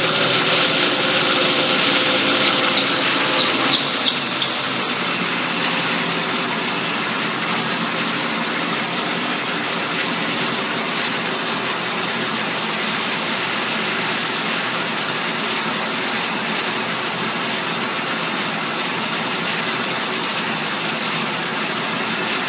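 Small two-stroke bicycle-kit engine of a motorized bicycle running steadily, somewhat louder for the first four seconds or so, then settling to an even, slightly quieter run.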